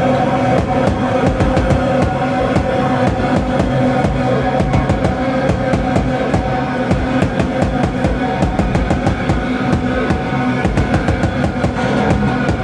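Live drums-and-bass noise rock: a drum kit played in fast, dense strokes over a heavily distorted bass guitar holding sustained, droning notes.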